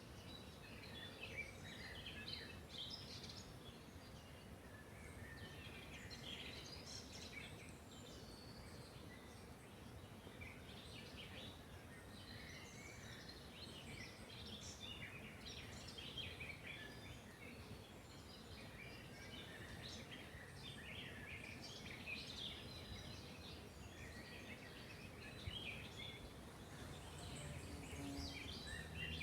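Songbirds chirping and singing throughout, several short calls and trills overlapping, faint over a low steady background noise.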